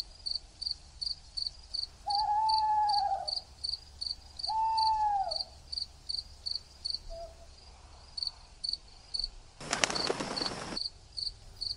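Spooky night ambience: a cricket chirping steadily, about three chirps a second, and an owl hooting twice a couple of seconds in, each hoot rising and falling. Near the end there is a brief rushing noise.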